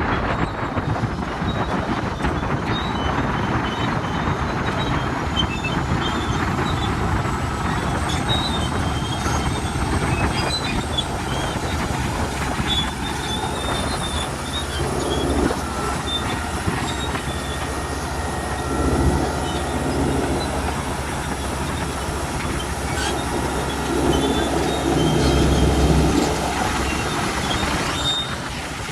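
Komatsu D375A crawler bulldozer moving on its steel tracks: track links clanking and squealing over the steady running of its diesel engine, which swells louder a few times, most strongly near the end.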